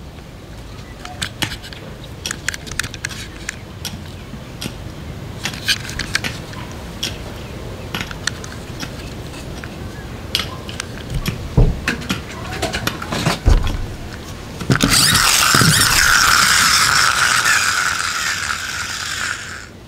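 Plastic toy monster-wheel vehicles handled: scattered clicks of the wheels and their gearing turning, a few knocks, then about fifteen seconds in a loud steady whirr of the wheel gearing spinning that cuts off suddenly near the end.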